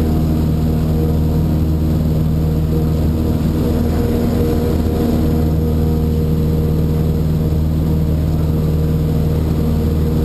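Cessna 152's four-cylinder Lycoming O-235 engine and propeller running steadily at full takeoff power, heard inside the cockpit during lift-off and the first climb.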